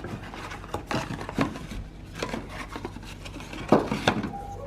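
Auto parts and their packaging being handled: scattered light clicks, taps and rustling, with one louder knock near the end.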